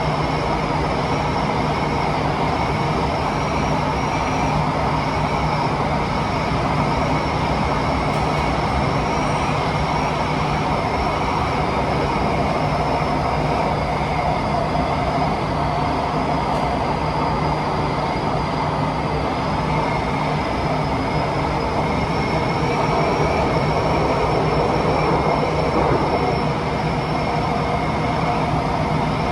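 Cabin of a Kawasaki–CRRC Sifang T251 metro train running at steady speed through a tunnel: a loud, even rush of wind noise and wheel rumble, with thin high whines that waver slightly in pitch.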